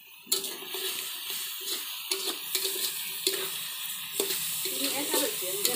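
Chopped vegetables and cashews sizzling in hot oil in a metal karahi while a metal spatula stirs and scrapes them around the pan, with a few sharp clinks of the spatula on the metal.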